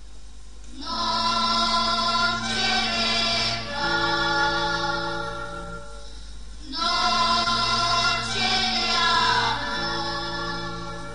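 Music with a choir singing, in two long held phrases, the second beginning about seven seconds in.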